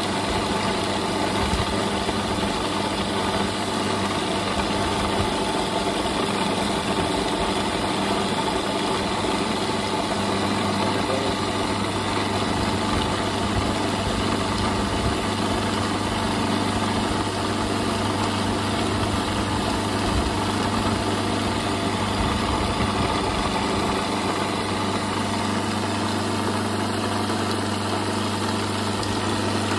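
Electric mixer-grinder motor running steadily, its blade grinding roasted sesame seeds and jaggery into a sticky paste in the jar. The sound is an even, unbroken drone with a low hum.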